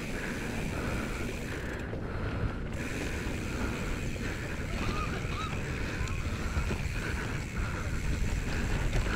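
Commencal Meta AM mountain bike descending a dirt downhill trail: a steady rush of wind on the microphone over the rumble and clatter of the tyres and bike on rough ground.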